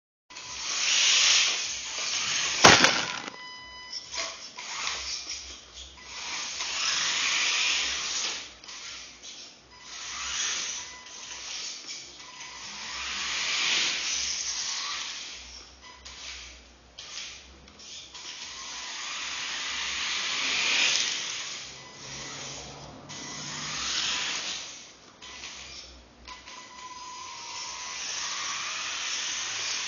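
Battery-powered rear-wheel-drive RC drift car driven around a concrete floor on ordinary rubber tyres, its tyres scrubbing and electric motor whirring in repeated swells as it passes and slides. A sharp knock about three seconds in is the loudest sound.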